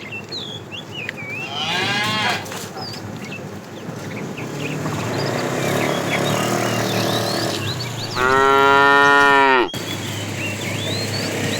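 Cattle mooing: a short call with falling pitch about two seconds in, then one long, loud, steady moo lasting about a second and a half near the end.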